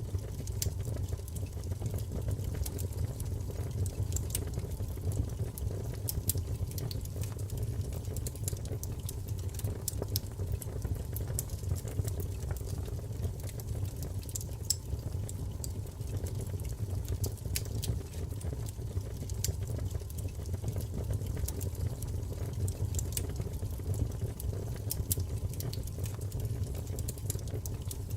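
Wood fire burning in a fireplace: a steady low rumble with scattered small crackles and pops.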